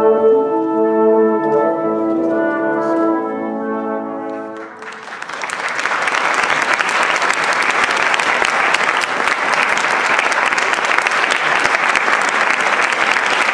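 An orchestra ends a piece on held chords that fade away, and about five seconds in the audience breaks into steady applause.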